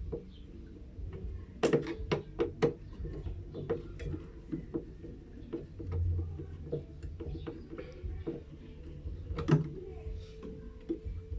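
Irregular clicks and knocks of tools and metal parts being handled while working on a washing machine, over a steady low hum. There is a cluster of sharp knocks about two seconds in, a dull thump about six seconds in, and another sharp knock near the end.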